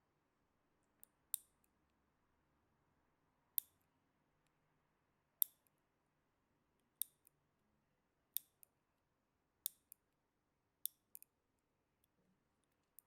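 Fingernails being cut: a series of sharp, crisp clips, about one every second and a half, some followed by a fainter second click.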